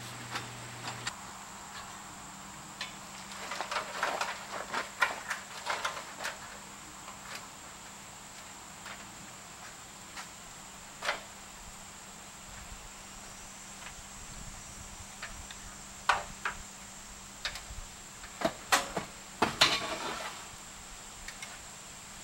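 Scattered knocks, clicks and rattles, in bunches a few seconds in, around the middle and near the end, from framing pieces of a steel-tube building being handled and fitted together. A steady high insect drone runs underneath.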